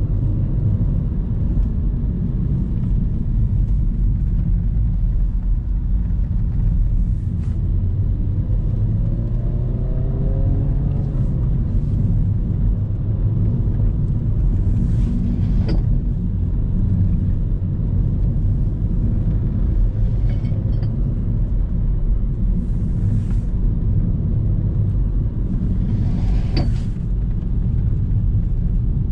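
Renault Megane IV driving on a winding mountain road, heard from inside the cabin: a steady low rumble of engine and tyres, with the engine note rising under acceleration about a third of the way through. A few short clicks sound over the rumble.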